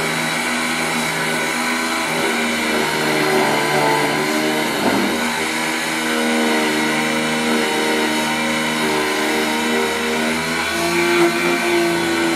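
Multifunction key duplicating machine running its motor and cutter as it mills a laser-track (sidewinder) car key from the tip. The steady hum shifts in pitch and strength as the cutter bites into the blank.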